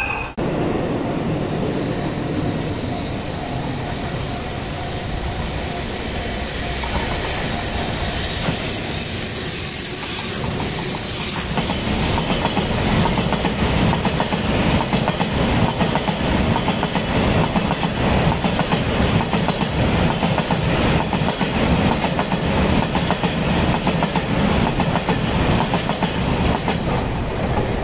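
Empty oil tank wagons of a freight train rolling past, their wheels beating a steady clickety-clack over the rail joints. The sound grows louder partway through and stops abruptly at the end.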